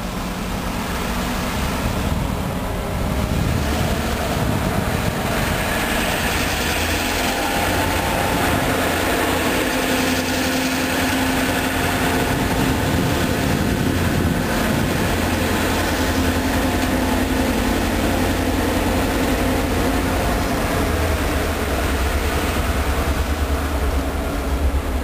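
EMD GP38-2 diesel-electric locomotives of a stone train passing, with a steady low engine drone and a held tone in the middle. Toward the end the freight cars rolling on the rails take over.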